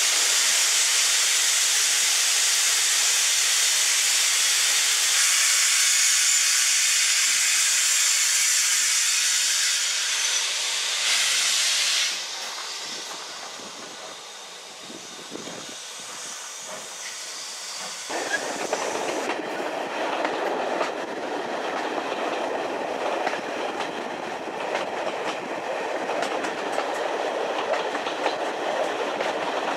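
Steam hissing loudly in a steam locomotive's cab, cutting off suddenly about twelve seconds in. After a quieter spell, the train is running along the track with a steady rumble and wheel clatter from about eighteen seconds on.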